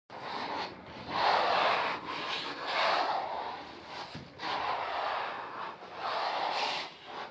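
Repeated rubbing or scraping strokes on a surface, about five in a row, each lasting roughly a second.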